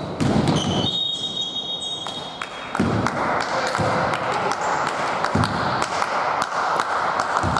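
Basketball bouncing on a hard gym floor: a few dull thuds a second or so apart, with sharp clicks and voices in a large hall.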